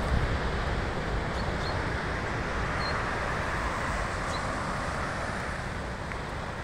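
Storm surf and gusting wind, a steady rushing noise that swells a little in the middle, with wind buffeting the microphone at the start.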